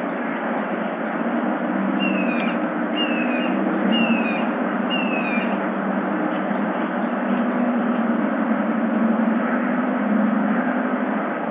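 Steady outdoor background hiss with a low hum beneath it. About two seconds in, a bird whistles four short notes that slide downward, roughly one a second.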